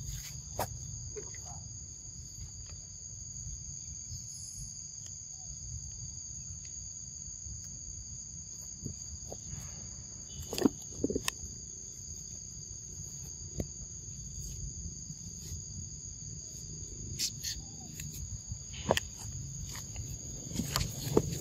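Steady high-pitched drone of insects, holding two pitches without a break, over a low rumble. Scattered short clicks and knocks break in, the loudest about ten seconds in and again near the end.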